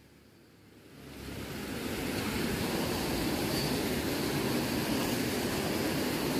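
Water pouring over a small concrete weir onto rocks: a steady rushing that swells over the first two seconds, then holds.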